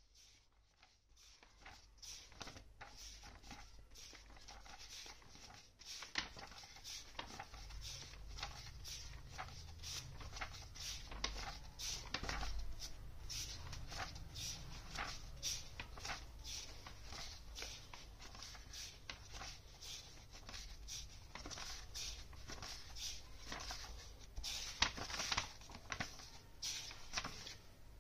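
Pencil sketching on paper: quick, irregular scratching strokes.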